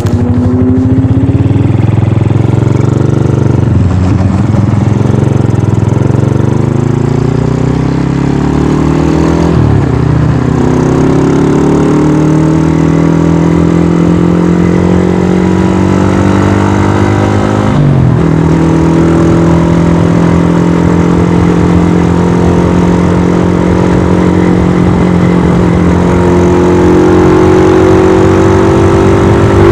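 Tuned Modenas Kriss 110 single-cylinder four-stroke engine at full throttle through an aftermarket exhaust, revving up through the gears with a sharp drop in revs at each shift about 4, 10 and 18 seconds in. It then holds high revs and climbs again near the end.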